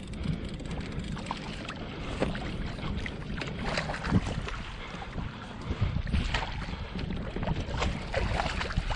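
Water slapping and splashing around a kayak, with irregular knocks and rattles of gear against the hull, and wind on the microphone.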